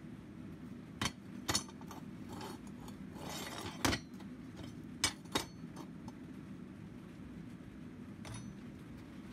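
Steel horseshoe clinking and knocking against a steel welding jig as it is set in place: about six sharp clinks, with a brief metal-on-metal scrape about three seconds in, over a steady low hum.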